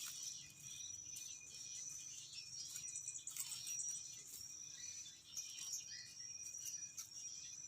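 Faint outdoor ambience: a steady high-pitched insect drone with scattered short chirps over it.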